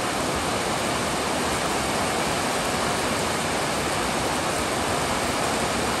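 Heavy rain pouring down, a steady even hiss.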